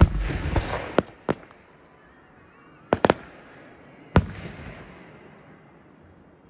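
Aerial firework shells bursting with sharp bangs: the loudest right at the start, then three more within the next second and a half, a close pair near three seconds, and a last one just after four seconds. The first and last bursts trail off into a fading hiss of crackling sparks.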